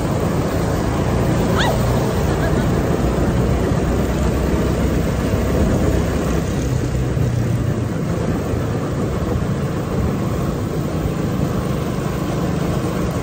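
Go-kart driving around a track: a steady, low engine drone with rushing noise and no letting up.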